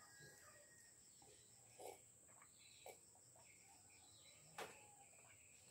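Near silence: faint room tone with a steady high-pitched whine and a few faint short sounds.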